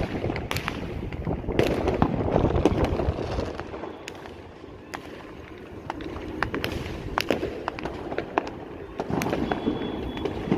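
Fireworks going off: many sharp bangs and crackles at irregular intervals over a steady low rumble, thinning out for a couple of seconds in the middle.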